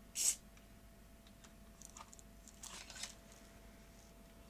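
A short burst of aerosol contact cleaner sprayed through its straw onto a camcorder's mode switch contacts: one brief hiss just after the start. Faint clicks and rustles follow from handling the tape mechanism.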